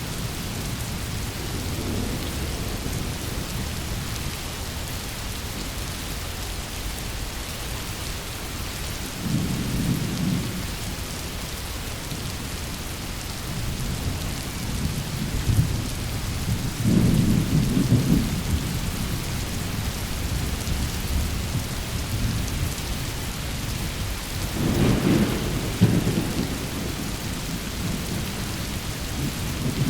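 Thunderstorm: steady rain hiss with low rolls of thunder swelling up about a third of the way in, again past the middle, and once more near the end.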